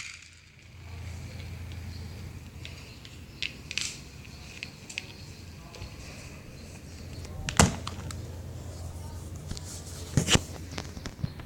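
Spring airsoft pistol being handled and cocked: scattered light clicks, with two sharper cracks about seven and a half and ten seconds in, over a low steady hum.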